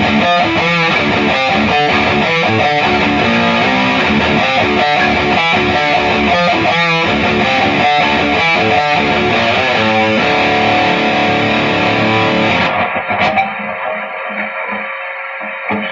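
High-gain distorted electric guitar played through a Peavey 6505 MH amp head into a Mesa 2x12 cabinet: fast, rhythmic chugging riffs, then a chord held about ten seconds in that rings and slowly fades near the end.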